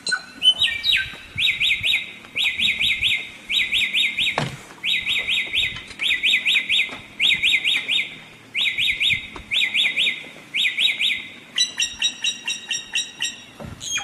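A samyong songbird singing: phrases of four or five quick whistled notes, one phrase about every second, repeated over and over. Near the end the song changes to a faster, choppier run of chirps.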